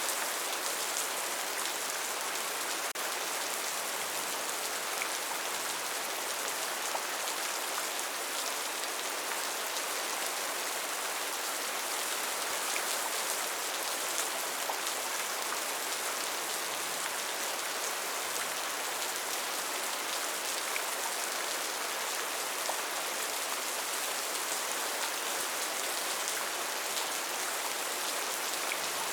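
Steady rain falling, an even hiss of many raindrops with scattered sharper drop ticks.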